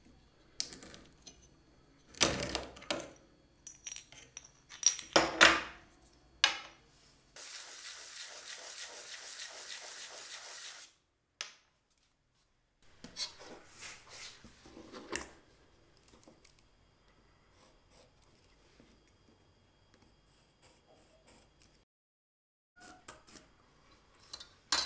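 Workshop handling noises of aluminum tube pieces and a small pipe cutter: sharp metallic clicks and clinks, then a steady scraping that lasts about three and a half seconds, followed by a few scattered light knocks and taps.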